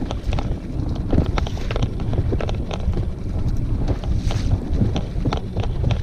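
Wind buffeting the microphone over the low, steady running of a small boat's outboard motor, with many irregular sharp knocks and slaps as the inflatable dinghy rides the chop.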